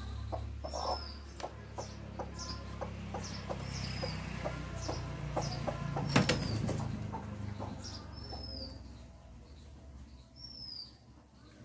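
Bird calls: a short, high, falling chirp repeated about once a second, with many soft clicks, over a low hum. A sharp knock comes about six seconds in.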